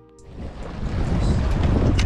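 A few plucked music notes end just after the start, then strong wind buffets the microphone, rising quickly and loud from about a second in.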